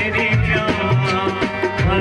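A man singing a folk song to harmonium and tabla: the harmonium holds steady reed chords under the voice, while the tabla keeps a rhythm, its bass drum sliding in pitch on some strokes.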